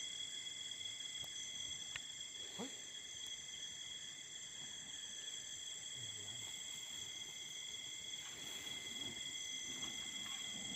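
Chorus of night insects trilling steadily at several high pitches at once, with a faint click about two seconds in.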